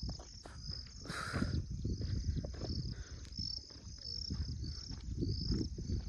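Insects chirping in a steady high-pitched pulse, about two or three chirps a second, over a low, uneven rumble on the microphone.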